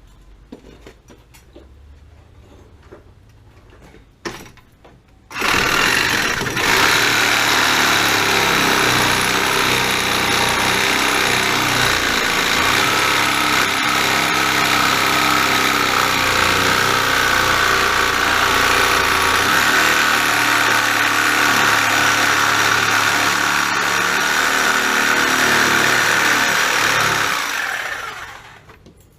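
A power saw running without a break for about twenty seconds as it cuts through a section of wall; it starts about five seconds in, just after a single knock, and stops near the end.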